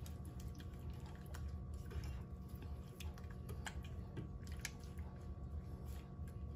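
Silicone spatula stirring a thick mix of rum-soaked raisins and condensed milk in a stainless steel saucepan: faint, irregular soft clicks and scrapes against the pot, over a steady low hum.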